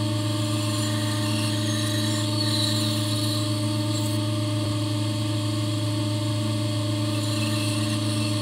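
Bandsaw running steadily, its motor hum under a constant hiss as the blade cuts through a block of cedar.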